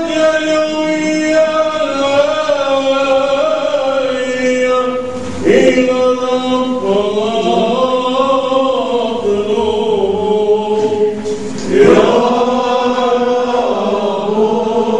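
Men's voices chanting a liturgical church hymn in long, drawn-out phrases, with fresh phrases beginning about five and a half and twelve seconds in.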